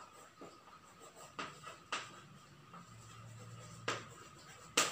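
Chalk writing on a blackboard: a handful of short, scratchy chalk strokes and taps as a word is written.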